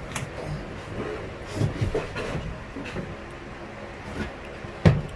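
Handling noise from work under a wooden bed frame: scattered small knocks, taps and rustles, with a few dull thuds partway through and one sharp knock near the end.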